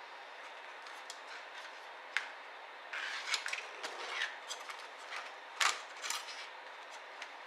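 Small clicks, taps and scrapes of ThinkPad T60p laptop parts being handled and worked apart during motherboard removal, over a steady faint hiss. The clicks come in an irregular cluster, and the loudest lands a little before six seconds in.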